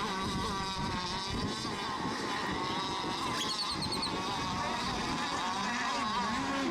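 Radio-controlled racing boats running at speed on the course, their motors a steady, high whine that wavers up and down in pitch.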